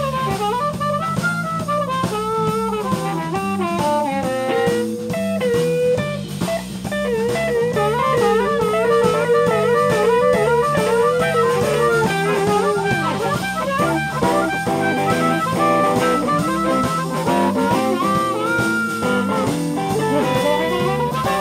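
Live band playing an instrumental break: an amplified harmonica played into a vocal microphone and an electric guitar carry wavering, bending lead lines over bass guitar and drum kit.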